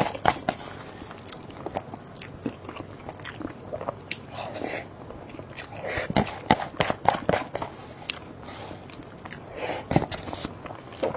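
Close-miked eating: a person biting and chewing food, with irregular crisp crunches and sharp mouth clicks coming in bunches.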